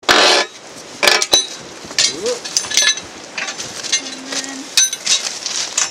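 Steel track bar clinking and knocking against rail fastening clips and steel sleepers. A short harsh scrape opens it, then come several sharp, ringing metal strikes.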